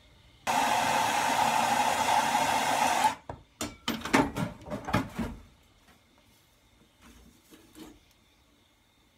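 Handheld gas torch running with a steady rushing hiss for about two and a half seconds as it heats a wire branding iron to a glow, then cut off suddenly. A quick run of sharp metal clatters and knocks follows as tools are handled and set down.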